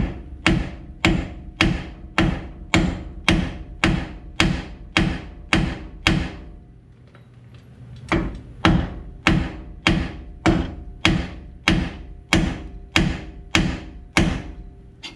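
Steady hammer blows on the front steering knuckle of a 1997 Ford F-150, about two to three a second with a metallic ring, to shock the tie rod end's tapered stud loose. The blows stop for about two seconds midway, then a second run follows.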